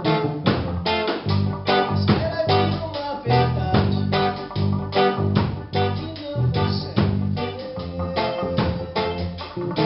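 Live reggae band playing: drum kit, electric guitars and bass guitar together in a steady rhythm, with a strong bass line.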